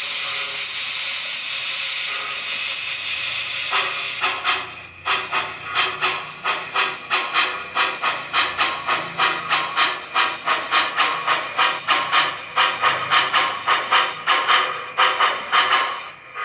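Sound system of an MTH HO-scale Union Pacific Big Boy model steam locomotive (DCS sound) playing a steady steam hiss, then steam exhaust chuffs starting about four seconds in. The chuffs settle into an even beat of about three a second and stop just before the end.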